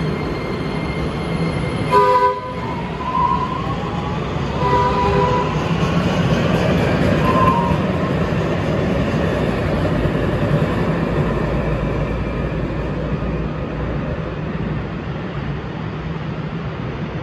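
DART light rail train (Kinkisharyo light rail vehicle) pulling out of the station: the steady rumble of the cars and wheels on the rails, with a short horn toot about two seconds in and a few brief higher tones over the next several seconds, easing off a little as the train leaves.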